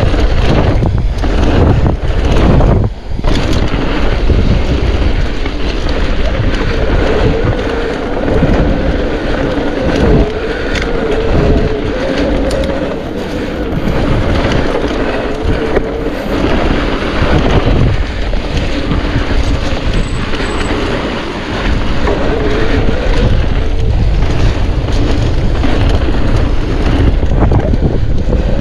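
Mountain bike riding a trail: wind buffeting the microphone over the rolling tyre noise and frequent rattles and knocks from the bike. A steady whirring tone runs through the middle stretch.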